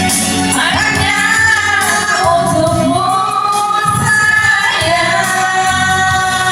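A song: a singer holding long, gliding notes over backing music.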